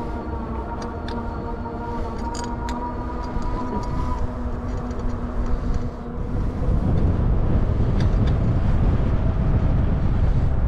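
A train running past on the tracks beside the trail, with a steady whine over its rumble. About six seconds in the whine fades and a louder low rumble takes over.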